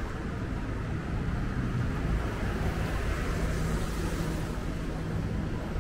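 City street traffic on wet pavement: a steady low engine rumble with tyre hiss that swells and fades around the middle as a car passes.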